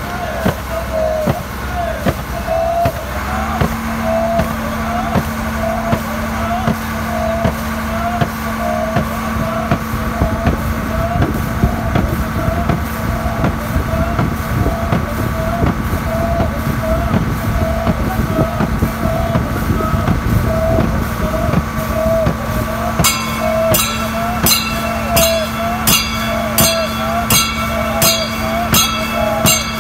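Snake boat rowers chanting and paddling in unison at about one and a half strokes a second, over the steady drone of a motorboat engine. From about 23 s sharper rhythmic strokes join in at the same beat.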